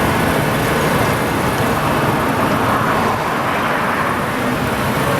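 Steady road traffic noise from cars on the street, swelling slightly around the middle as one passes close.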